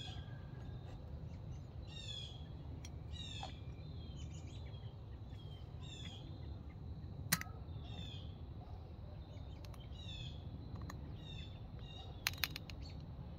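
Birds chirping over and over, each call a short run of quick high notes sweeping downward, about once a second, over a steady low outdoor rumble. A few sharp clicks from small metal transmission parts being handled, the loudest about halfway through and a couple more near the end.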